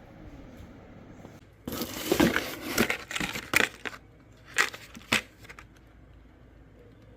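Packaging being handled during an unboxing: about two seconds of loud crinkling and crackling, then two sharp clicks about half a second apart.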